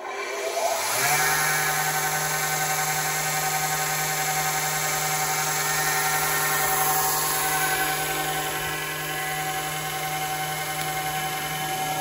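Sears Craftsman combination belt and disc sander switched on with a click, its motor spinning up over about a second and then running with a steady hum.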